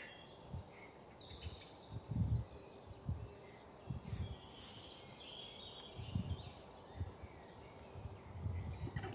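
Birds chirping in the background, short high calls scattered throughout. Soft low thumps come every second or so as mushroom caps are handled and set down in a glass dish.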